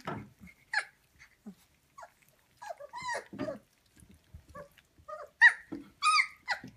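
Three-week-old German Shepherd puppies whining and squealing in short, high calls while jostling at a shared plate of porridge, the loudest calls near the end.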